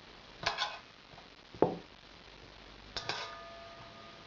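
Kitchen bowls knocking and clinking as they are handled on a table: three separate knocks, the loudest about a second and a half in, the last one ringing briefly.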